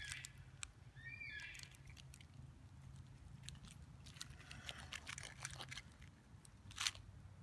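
Aluminium foil crinkling and a knife scraping and cutting into a foil-wrapped catfish baked in campfire coals: a string of soft crackles and clicks, with one sharper click near the end.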